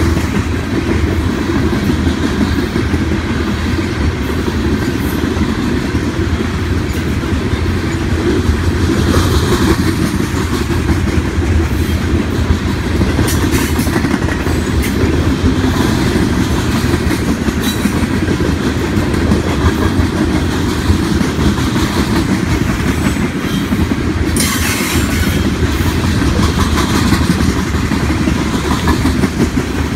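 Empty coal cars of a freight train rolling past over a grade crossing: a steady rumble of steel wheels on rail with clickety-clack, and a few sharper clattering bursts about halfway through and again later.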